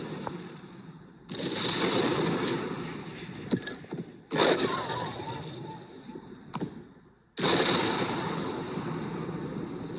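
A series of three short, noisy sound-effect clips. Each starts abruptly with a loud rushing or rumbling burst and dies away, with a few sharp clicks in between.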